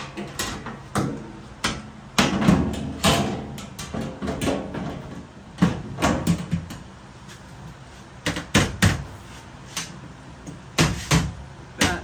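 Sheet-metal top panel of an LG front-load washer being slid onto the cabinet and knocked into place: about a dozen irregular metal clunks and knocks, some in quick pairs.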